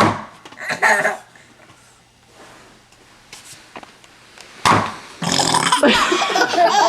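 A baby burping in short, loud bursts, with laughter breaking out over the last part.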